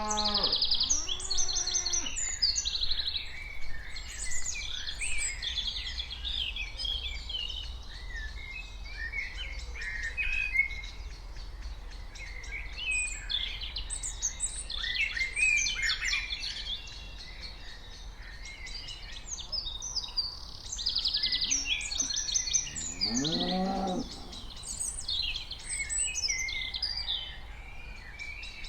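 Many small birds chirping and singing over a steady low rumble. The end of a cow's moo fades out in the first two seconds, and a short low animal call comes about twenty-three seconds in.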